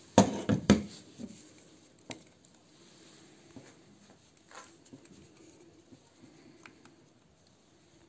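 Hard plastic clicks and knocks from handling the parts of a cordless handheld car vacuum: a quick cluster of about three loud knocks near the start, one sharp click about two seconds in, then light handling taps.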